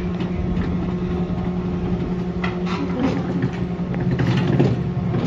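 Chairlift bottom-station machinery running with a steady hum. A few clicks come about halfway through, and a louder rattle and clatter comes near the end as a chair passes round the bull wheel.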